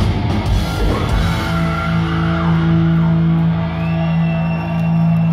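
Heavy metal band playing live at concert volume: dense drums and distorted electric guitars for about a second, then a chord held and left ringing, with a few high gliding guitar notes over it.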